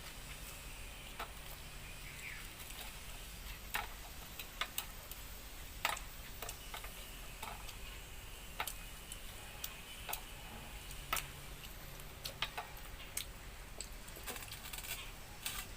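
Eating sounds: irregular short clicks and smacks of chewing and of a hand working the food, about a dozen spread unevenly over the stretch, over a faint steady background.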